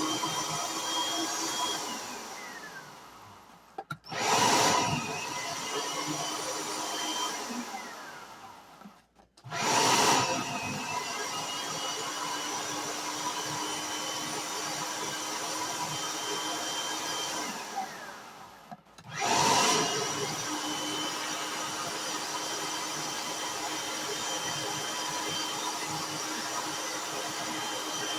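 Electric food shredder's motor running as cabbage is fed through it, switched off three times, its pitch falling as it spins down, and restarted each time with a loud surge.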